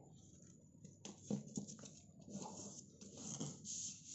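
Stiff buckram interlining being folded lengthwise and smoothed flat by hand on a table: faint rustling with a few light taps.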